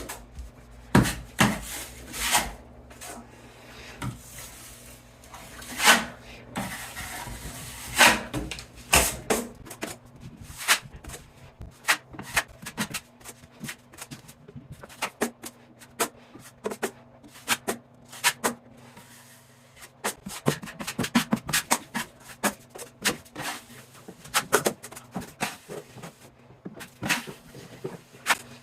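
Steel drywall knife spreading and scraping quick-set joint compound on a wall: irregular scraping strokes and sharp clicks of the blade, coming faster and closer together near the end.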